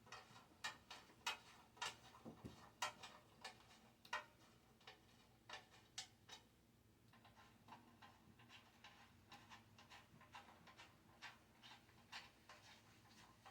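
Light, sharp clicks and ticks of small hard objects, a few a second: uneven and louder in the first half, fainter and more regular after about seven seconds.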